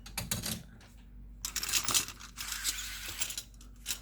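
Small phone-repair tools being handled and set down on a workbench: a few light metal clicks and clinks, then about two seconds of rustling and scraping.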